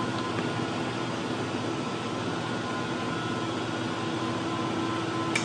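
Steady whirring hum of ventilation or air-conditioning equipment, carrying a few faint steady tones, with a single light click near the end.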